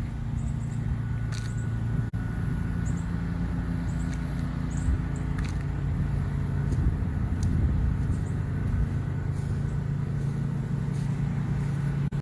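Car running along a road, heard from inside the cabin: a steady low engine and road rumble.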